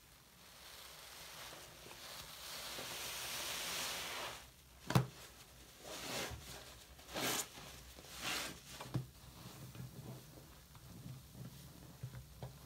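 Wet foam sponge lathered with mouthwash being rubbed and squeezed in a sink of soapy water: a steady foamy hiss that grows over the first four seconds, a sharp click about five seconds in, then several short squelching squeezes.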